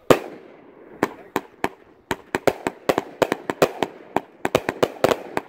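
A Raccoon Fireworks 'Willow Explosion' consumer firework cake firing shot after shot. One loud bang comes at the start. After a short gap the sharp reports come again about a second in, then speed up to a run of several a second.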